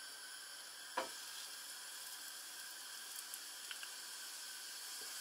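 A flat patty of doughnut dough frying in a pan of vegetable oil with a soft, steady sizzle and a few small crackles. There is one short knock about a second in, as the patty goes into the pan.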